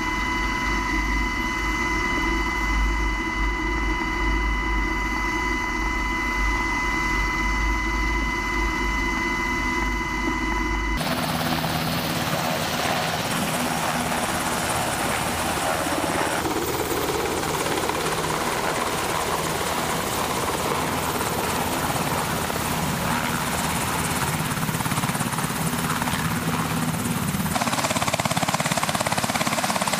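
A US Coast Guard MH-60T Jayhawk helicopter's twin turboshaft engines and rotor running. At first, heard from inside the cabin, there is a steady high turbine whine over a deep rumble. About eleven seconds in it is heard from outside as it hovers low and then sits with rotors turning, a loud even rushing of rotor and engine.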